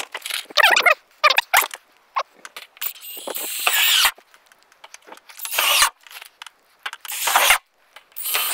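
A cordless driver sinking roofing screws into tin roofing and ridge cap in a string of short bursts, some with a squeal as the screws bite the metal.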